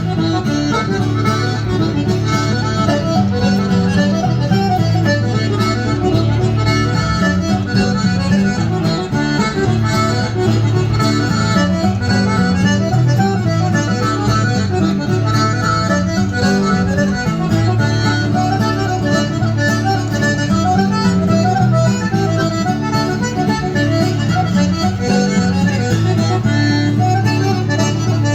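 Live Irish music: a quick, continuous melody over a steady bass and chords.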